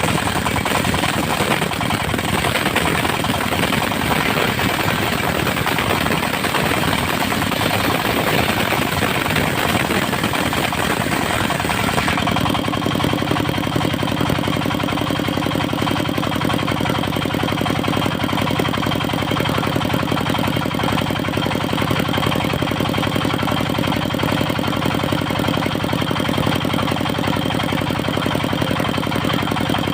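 Diesel engine driving a mobile circular sawmill, running steadily. About twelve seconds in the sound changes: the noisier, hissier part gives way to a steadier engine tone.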